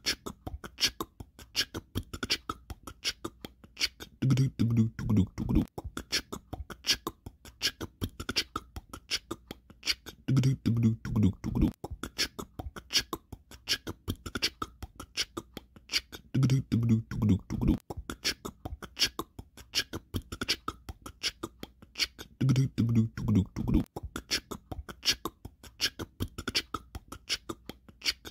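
Royalty-free outro music: a fast, steady beat of short percussive hits, with a brief low melodic phrase coming back about every six seconds.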